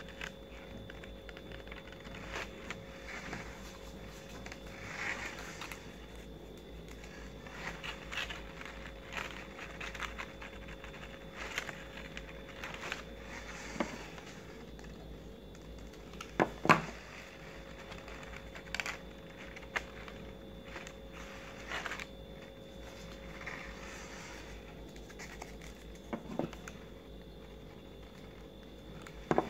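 Stiff paper petals rustling and crinkling as they are handled and shaped, with scattered clicks and a few sharper knocks, the loudest about halfway through. A faint steady hum runs underneath.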